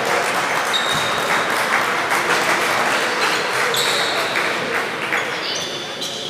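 Gym noise during a basketball game: steady crowd chatter with sneaker squeaks on the hardwood court, the longest near the end, and the thuds of a dribbled ball.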